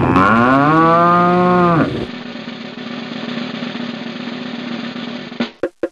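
A tethered black bovine gives one long, low moo lasting just under two seconds, falling in pitch at first and then holding steady. A steady quieter hum follows, with a few sharp clicks near the end.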